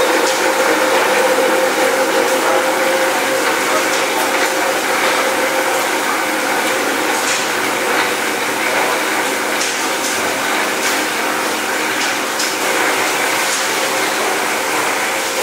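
Steady machinery hum and running water in a fish-processing room, with scattered clicks and clatter from the cutting tables.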